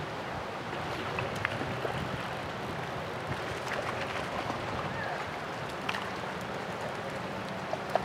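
Steady rush of a fast-flowing river, with a few brief sharp clicks.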